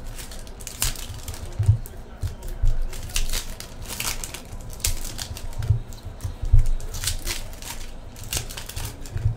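Foil trading card pack wrappers crinkling and tearing as the packs are opened by hand and the cards slid out, in a quick irregular run of crackles and rustles with a few dull bumps.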